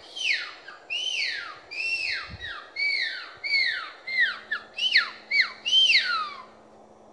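A run of about a dozen loud agouti whistles: each a short note that rises briefly and then glides steeply down in pitch. The notes come a little faster toward the end and stop about a second before the end.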